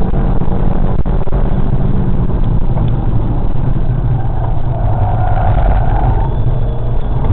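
A Golf 5 1.4 TSI's turbocharged four-cylinder engine running hard at track speed, heard through an exterior-mounted camera's microphone. Heavy wind rumble lies over the engine throughout.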